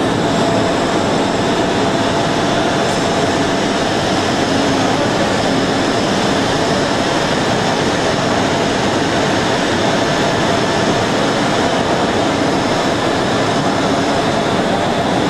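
Steady, loud running noise of factory machinery, an even rush with a faint steady whine in it.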